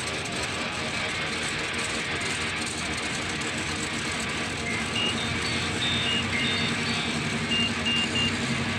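Aeroprakt ultralight's engine and propeller running steadily as the plane taxis, heard from inside the cockpit. From about halfway through, a run of short high beeps joins it.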